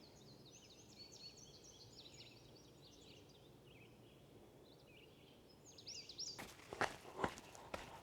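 Faint birdsong, a quick run of high chirps and trills, then from about six seconds in a series of footsteps on a trail.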